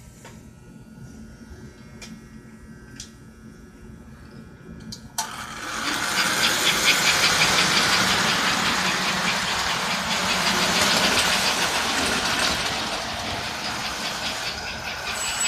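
American Flyer S-gauge toy train running on its track: faint clicks at first, then a sudden jump about five seconds in to a loud, steady rumble of wheels and motor with a fast clatter running through it as the train passes close by.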